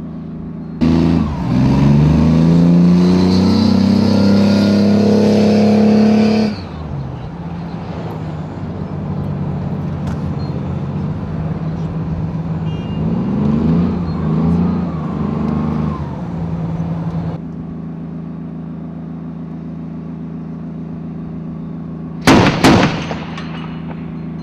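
BTR-4 armoured personnel carrier's diesel engine revving hard, climbing in pitch for about five seconds, then running at lower revs with a few short rises before settling to a steady low running note. Near the end, a brief loud burst of sharp cracks.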